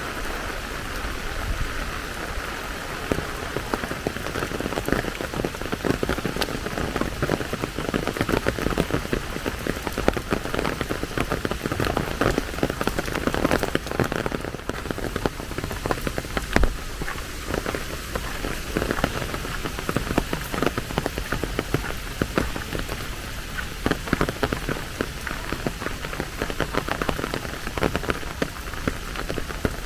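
Steady rain with a dense, irregular patter of individual drops hitting a surface.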